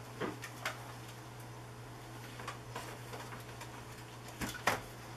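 Scattered light clicks and knocks of computer cables and connectors being handled and plugged in, the loudest a pair of knocks near the end, over a steady low hum.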